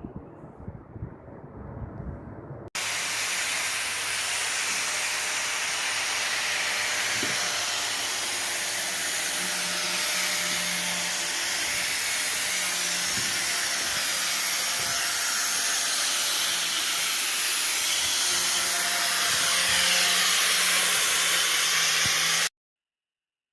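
Angle grinder raking out old mortar joints in a brick wall for repointing: a steady, loud gritty hiss over a low motor hum. It starts abruptly a few seconds in and cuts off suddenly near the end.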